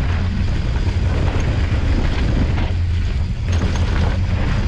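Wind rumbling on a bike-mounted action camera's microphone as a mountain bike rolls down a dirt trail, with tyre noise and a few sharp rattles from the bike over bumps.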